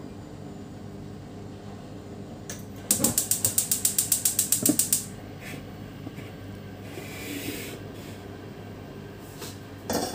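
Gas hob's spark igniter clicking rapidly, about eight clicks a second for two seconds, as a burner is lit. Later comes a short pour of liquid into a small saucepan, and a single clink near the end.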